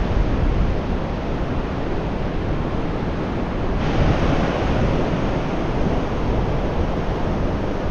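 Pacific Ocean surf washing onto a flat sand beach, a steady rushing noise, with wind buffeting the microphone.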